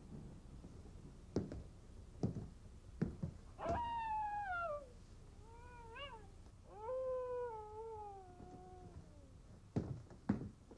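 A cat meows three times: a falling call, a short rise-and-fall, then a longer falling call. A few sharp, evenly spaced knocks come before and after the meows.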